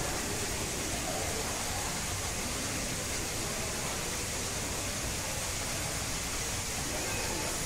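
Steady, even background hiss that does not change in level.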